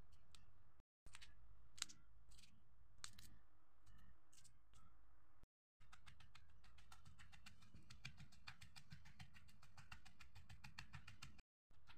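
Faint knocks and crunches of a wooden pestle pounding garlic, chillies and beans in a wooden mortar. The knocks are sparse at first; about halfway through they turn into a quick, close run of small clicks.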